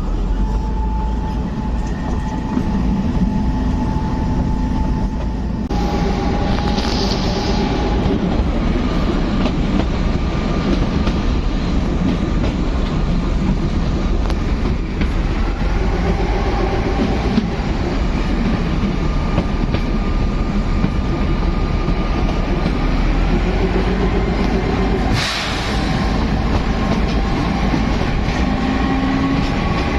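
Kalka–Shimla narrow-gauge toy train running, a steady rumble and rattle of the moving coach with thin whining tones that come and go. A short burst of noise cuts in about 25 seconds in.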